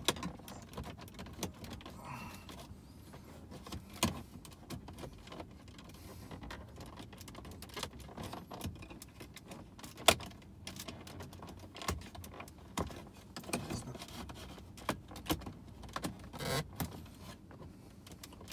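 Plastic dashboard trim on a Ford Focus ST's centre stack being pried loose with a trim tool: scattered clicks, taps and scrapes as the clips are worked, with the sharpest snaps about four and ten seconds in.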